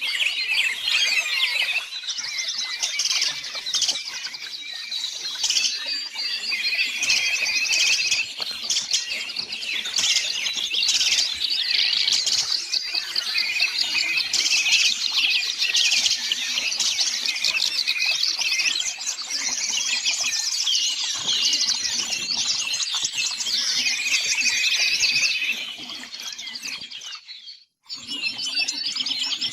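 Songbirds singing, a dense stream of high chirps and trills. The song fades near the end, breaks off for a moment and then starts again.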